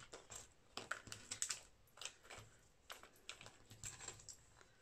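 Faint, irregular light clicks and taps as small craft embellishments are handled and set into a clear plastic compartment box.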